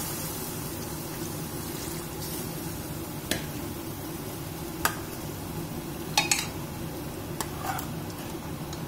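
Spiced pumpkin gravy cooking in an open pressure cooker, a steady sizzling hiss. A steel ladle clinks against the pot about half a dozen times in the second half.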